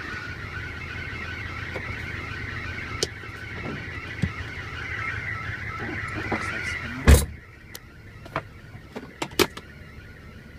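Mitsubishi Fuso truck's diesel engine idling, its drive belt squealing in a steady high whine: the belt is slipping and needs attention. About seven seconds in a loud knock sounds, and after it the squeal drops to faint, with a few light clicks.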